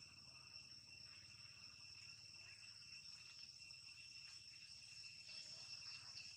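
Faint, steady insect chorus: several high, even tones held without a break, as crickets or other insects sing in the surrounding vegetation.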